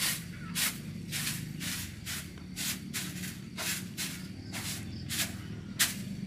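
A hand stirring and lifting live Asian swamp eels in a plastic bucket with a little water: short wet swishes, about two a second.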